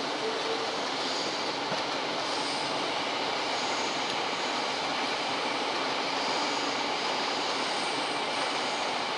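Electric train running along the station tracks below, a steady wash of noise with faint high wheel squeals coming and going.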